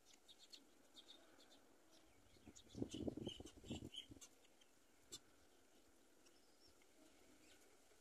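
Faint, scattered high bird chirps, with a brief louder burst of rustling noise about three seconds in.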